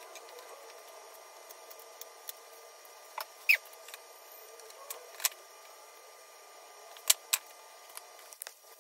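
Handling noise from a 3D-printed hydrofoil as it is lifted, carried and set down on a stand: a few sharp knocks and clicks spread over several seconds, with a short squeak a little over a third of the way in. A steady faint hiss runs underneath.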